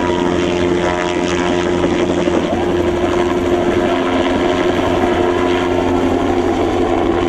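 Helicopter running steadily overhead, its rotor and engine making a loud, even drone.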